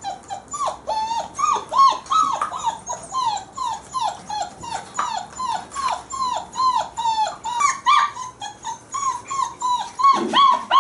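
Month-old German Shepherd puppies whining and yelping over and over: short high cries that rise and then drop, about three a second.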